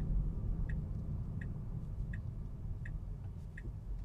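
Tesla Model 3's turn-signal indicator ticking steadily, about one tick every three-quarters of a second, as the car waits to turn, over a low cabin hum.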